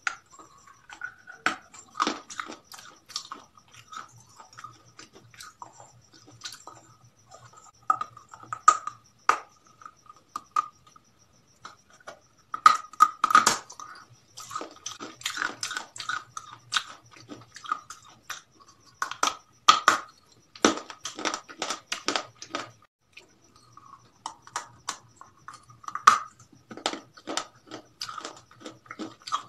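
Close-miked eating of fried food: irregular crunchy bites and wet chewing of french fries, in clusters of crisp crunches with short gaps between.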